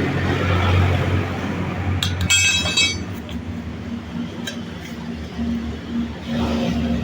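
A short burst of metal clinking with a ringing jangle about two seconds in, like metal tools knocking together, over a steady low mechanical hum.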